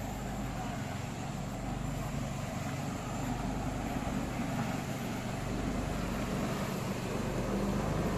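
Motor of a sago-processing machine running steadily: a low engine hum that grows a little louder.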